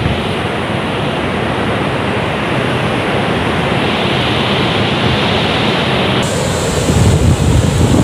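Wind buffeting a phone microphone outdoors: a steady rushing noise with an uneven low rumble. The noise changes abruptly about six seconds in, and the low buffeting grows stronger near the end.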